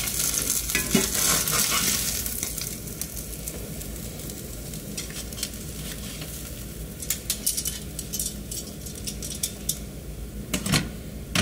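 Hot oil sizzling in a cast iron skillet after frying salmon croquettes, loudest for the first two seconds and then easing to a softer hiss. Light clicks of metal tongs and a spatula against a wire rack come in the second half, with a sharper one near the end.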